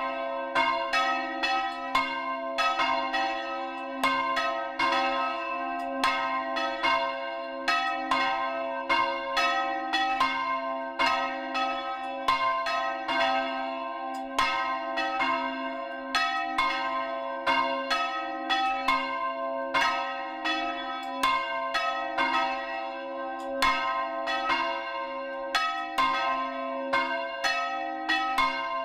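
Church bells swung full circle by hand, the clapper striking about twice a second in a steady rhythm over a lasting, ringing hum.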